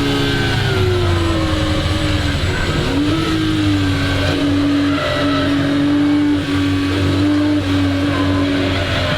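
1961 Ferrari 250 GT SWB's 3-litre Colombo V12 running hard. The engine note falls over the first two seconds, dips and climbs back up about three seconds in, then holds fairly steady with a few brief breaks.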